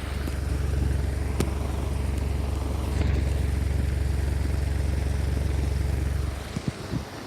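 IndusCom ICWF-115 wall fan running, its air stream buffeting the microphone with a steady low rumble that stops about six seconds in.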